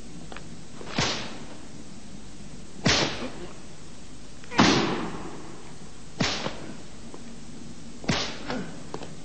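Whip lashes striking a bound man during a flogging: five sharp cracks, roughly one every two seconds, each with a brief fading tail; the third is the loudest.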